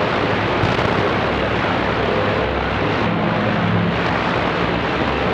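Steady hiss of static from a CB radio receiver between transmissions, with faint steady whistle tones coming through under the noise about two seconds in.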